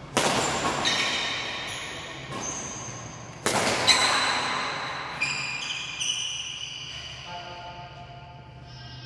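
Music made of sustained bell-like notes and chords that change every second or so, over a low steady hum. Two loud sharp crashes with ringing tails cut in, one just after the start and one about three and a half seconds in.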